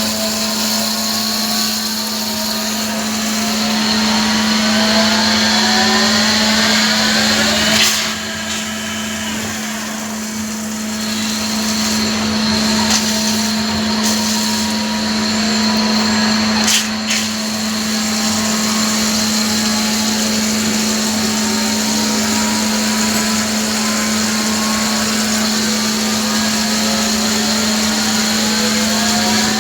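CNC lathe running steadily while turning a D2 tool-steel part, with a constant hum and a high whine, and tones that slowly glide up and down as the cut goes on. A sharp knock sounds about eight seconds in and another a little past halfway.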